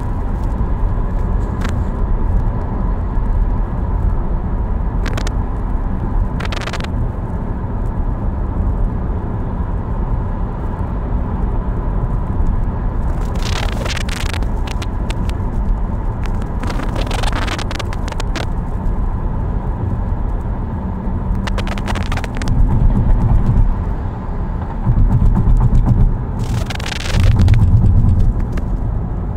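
A car driving on the road: a steady low rumble of engine and tyres, with several short bursts of hiss along the way and louder low surges in the last few seconds.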